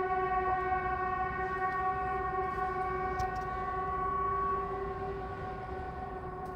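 Swedish outdoor public-warning siren ("Hesa Fredrik") sounding one steady held note, easing slightly in level about two-thirds of the way through. This is the siren's scheduled quarterly test.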